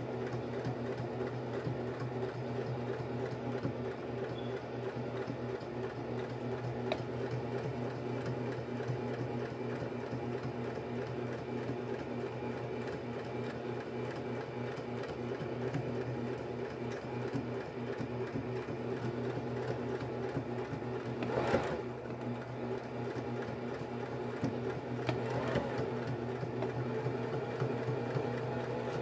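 Electric domestic sewing machine running steadily, stitching through denim: a motor hum under a fast, even needle rhythm.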